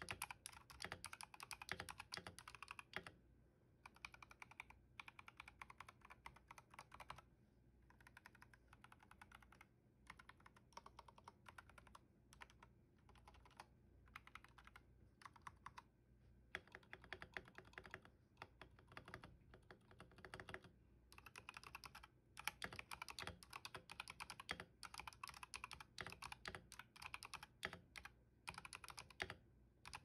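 Typing on a Keychron V1 mechanical keyboard fitted with JWK Green Snake linear switches: quick runs of key strokes with brief pauses between them.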